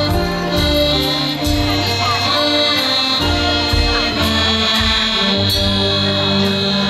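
Live luk thung band playing an instrumental passage, the accordion to the fore over a walking bass line and a steady drum beat, with no singing.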